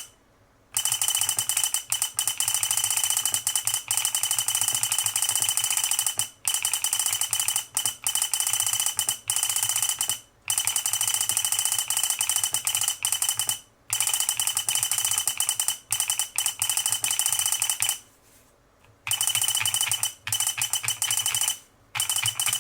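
GH60 keyboard kit typed on rapidly, its keyswitches and solenoid clacking with a high buzzer beep held through each run of keypresses, in bursts of a few seconds with short pauses between them.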